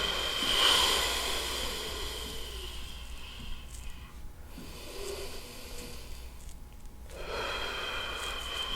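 Handheld electric massager running with a steady high whine over a hiss. It drops away for a few seconds in the middle and comes back near the end.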